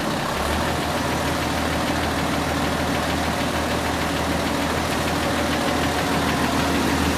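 Diesel engine of a truck-mounted crane running steadily with a low hum while the crane holds and swings a heavy load of about 8 tonnes.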